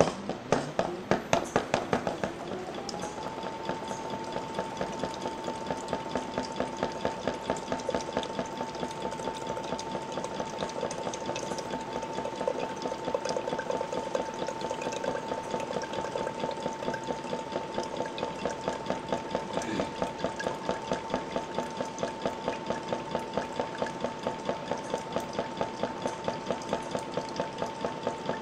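Pump of a liquid dispensing system starting up and running, its whine rising in pitch over the first two seconds or so and then holding steady. Under it is a pulsing beat about three times a second as liquid pours into a plastic measuring jug.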